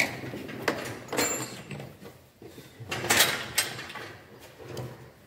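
Scattered knocks and clatter of hand tools and metal parts being handled in an engine bay during reassembly, with the loudest burst about three seconds in.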